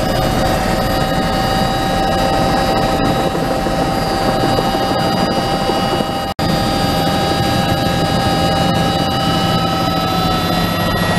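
Helicopter noise heard from inside the cabin in flight: a loud, steady rotor and engine din with a steady high whine over it. The sound breaks off for an instant about six seconds in.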